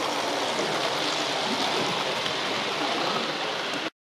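Steady rushing whir of H0-scale model trains rolling on the layout's track, mixed with hall background noise; it cuts off abruptly near the end.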